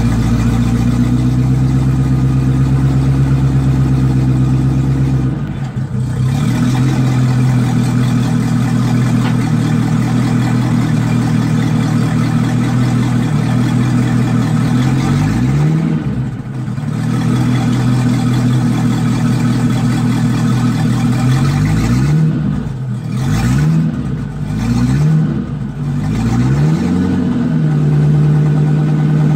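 Volvo Penta stern-drive boat engine running out of the water, with its exhaust open to the air. It runs steadily and is revved up and back down several times, most of them in the last third.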